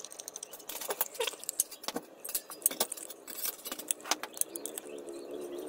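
Hand-held can opener cutting open the lid of a tin of fish: a quick, irregular series of sharp metallic clicks and crunches as the blade levers through the tinplate.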